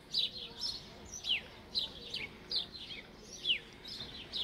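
Small birds chirping over and over: short, falling chirps, about two or three a second.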